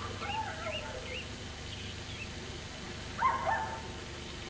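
Young puppy whimpering: a falling whine in the first second, then a louder pair of short yelps about three seconds in.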